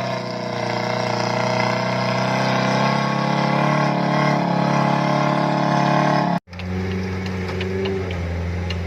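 An off-road 4x4's engine runs steadily. About six seconds in the sound cuts off abruptly, and a different, deeper engine note follows with faint light ticking over it.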